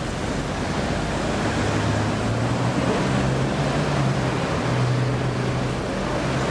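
Steady city street background noise: a constant traffic rumble with a low hum underneath.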